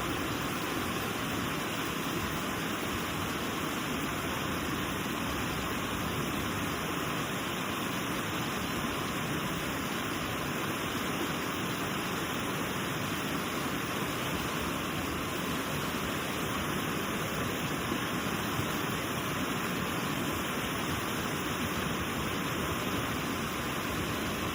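Steady rush of a river and waterfall, an even wash of water noise with no change.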